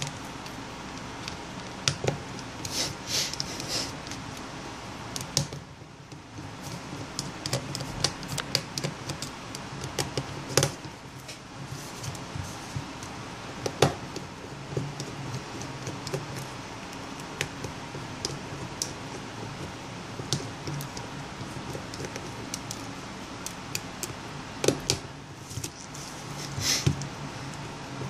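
Irregular small clicks and taps of a tool and fingertips on the plastic housing and internal panel of an LG Nexus 5 smartphone as its upper panel is worked loose during disassembly.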